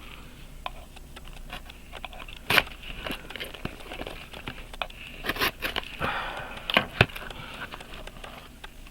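Packaging being handled: crinkling and crackling of taped wrapping and styrofoam packing, with a few sharp knocks and clicks.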